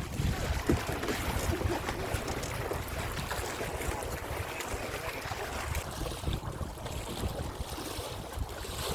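Wind buffeting the microphone in a steady low rumble, over water washing around a small boat being paddled.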